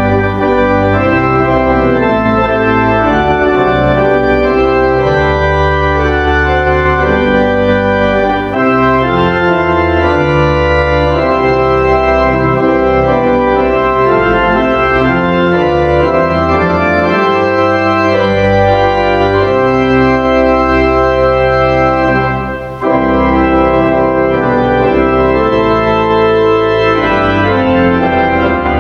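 Church organ playing a hymn in sustained, slowly changing chords, with a brief break about 23 seconds in.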